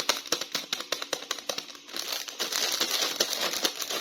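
Plastic toy packaging being crinkled and handled: a run of sharp crackles and clicks that grows into a denser crinkling about halfway through.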